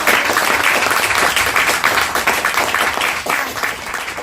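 Audience applauding, dense steady clapping that begins to die down near the end.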